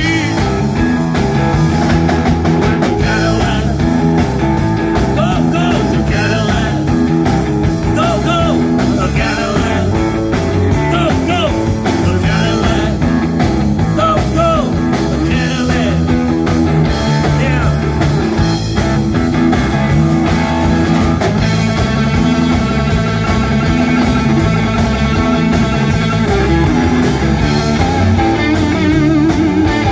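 Live rock band playing: electric guitar, electric bass and a Pearl drum kit, with a man singing.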